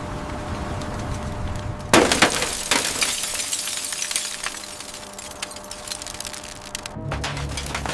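Glass shattering with a sharp crash about two seconds in, followed by a few seconds of fragments crackling and tinkling that slowly die away, over a low steady rumble.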